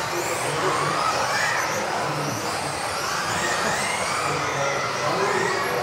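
Several electric RC off-road buggies racing together, their motors whining and gliding up and down in pitch as they accelerate and slow through the corners, over a steady hiss.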